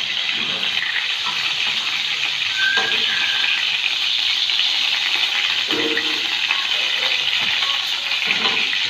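Fish pieces sizzling in hot ghee in a wok, a steady hiss of frying.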